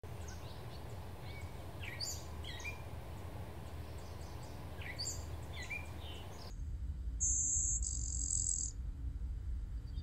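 Small songbirds give scattered short chirps over steady low background noise. About two-thirds of the way in, the background changes and a blue-winged warbler sings its song: two buzzy high notes, one after the other, lasting about a second and a half together.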